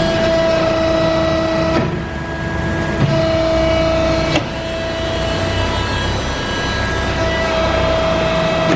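Cincinnati CB II press brake running: a steady machine hum with a whine that cuts out and comes back twice, and short clicks about three and four and a half seconds in.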